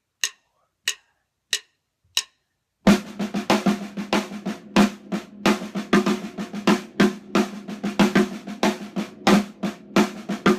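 Several evenly spaced sharp clicks counting in, then a snare drum played with sticks at a quicker tempo: a one-bar 7/4 pattern of loud accents and soft ghost notes, all on the snare.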